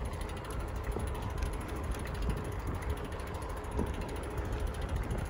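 Bicycle rolling along asphalt: a steady rumble from the tyres, with mechanical ticking and rattling from the bike itself.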